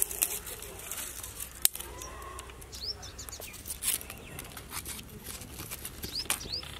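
Dry twigs snapping and crackling in a small wood fire, with sharp clicks scattered irregularly and a few short rising bird chirps in the background.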